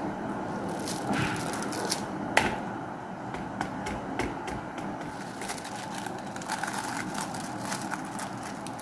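Frozen chicken-and-potato fingers being pulled apart and lifted off parchment paper in a metal baking tray: irregular crackles and clicks of paper and frozen mixture, with one sharp click about two and a half seconds in, over a steady low hum.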